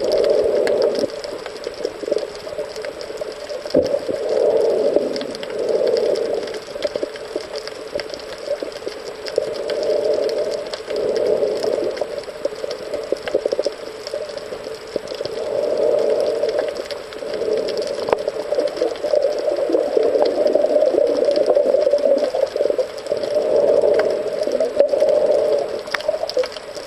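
Muffled underwater sound picked up by a camera held below the surface while snorkeling: a hollow rushing that swells and fades every few seconds, with scattered small clicks.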